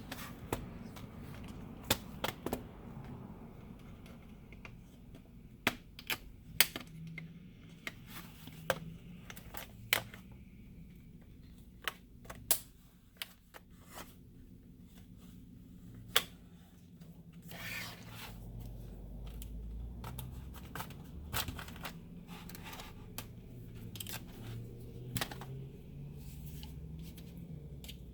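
A plastic pry tool working along the seam of an HP Stream laptop's plastic case: irregular sharp clicks and snaps of the case clips, with scraping between them.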